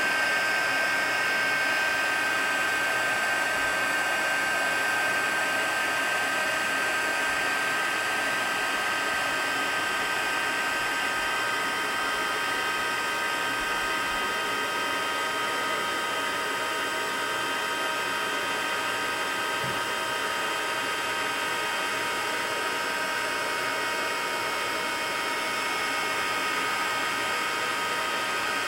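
Embossing heat tool blowing steadily with a constant whine, melting shimmery embossing powder on a stamped card.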